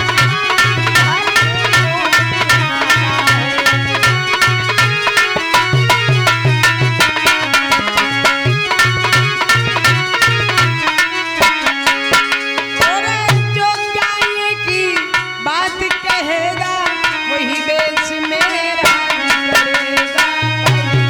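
Instrumental break in a Hindi devotional folk song: a fast, driving hand-drum rhythm under a melody line on accompanying instruments, with some sliding notes a little past the middle.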